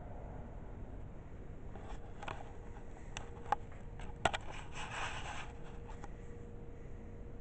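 Camera handling noise: a few sharp clicks and a short rustling scrape between about two and five and a half seconds in, over a steady low hum.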